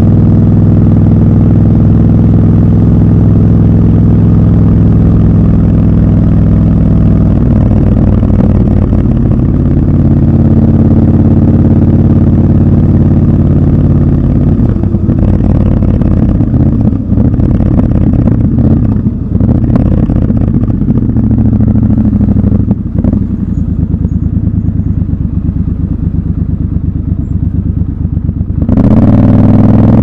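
Triumph Scrambler 1200 XC's parallel-twin engine, heard raw from the rider's seat. For the first few seconds it runs at a steady cruise. It then turns uneven, with dips as the throttle is worked, and near the end it climbs sharply in pitch and loudness as the bike accelerates.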